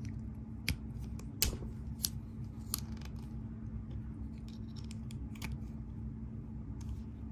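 Light, irregularly spaced clicks and clacks of the set's metal impact flip sockets and bit shaft knocking together as they are pulled apart and slid back on.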